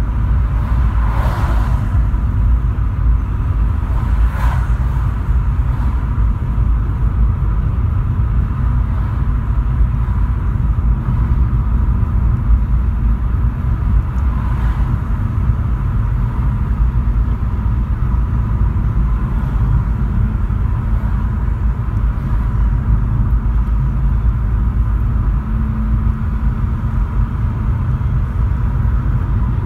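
Steady low road and engine rumble inside the cabin of a Volkswagen Polo cruising on a motorway, with brief swishes of passing traffic about a second and four seconds in.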